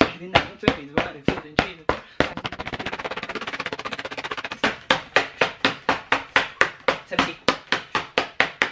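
Open hand slapping a sheet of paper held up in the other hand. The sharp slaps come about four a second, speed up into a fast flurry from about two seconds in to about four and a half, then return to a steady four a second.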